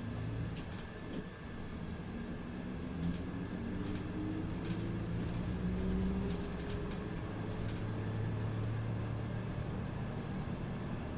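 City bus engine and drivetrain heard from inside the cabin as the bus accelerates, a whine rising steadily in pitch for several seconds while the running noise grows louder, then settling into steady running. A few faint rattles ride on top.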